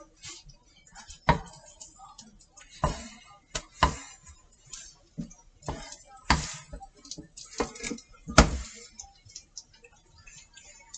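Kitchen clatter: about half a dozen sharp knocks and clacks a second or two apart, the loudest about eight seconds in, as a wooden spatula works a frying pan and a carton, a jar and a tin are set down on a hard counter.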